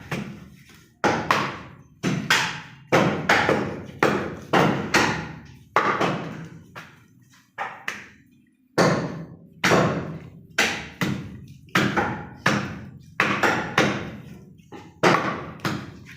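Cleaver chopping goat leg meat and bone on a chopping block: a run of heavy chops, about two a second, each fading quickly, with a short pause about halfway through.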